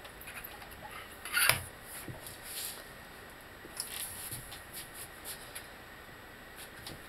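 Scattered metal clicks and short scrapes from working a rubber bushing into a VW Mk4 front control arm with a hand-operated press, with one louder knock about a second and a half in.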